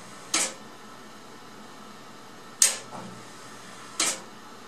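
Heavy relays of a high-voltage transmitter power supply's step-start circuit clacking, three sharp clacks over a low steady hum. The circuit switches the supply on in stages to hold off the transformer's large inrush surge at power-up.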